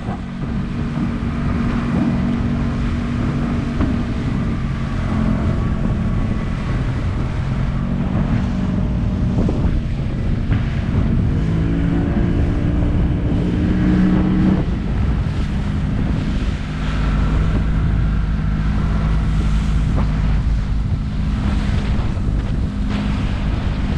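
Small motorboat's engine running under way over choppy water, with wind buffeting the microphone and water rushing along the hull. The engine speeds up about halfway through, then drops back.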